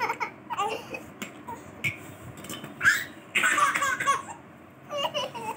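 A baby laughing in short bursts, with an older child laughing along; the loudest burst comes about three seconds in, and a few light knocks are scattered through.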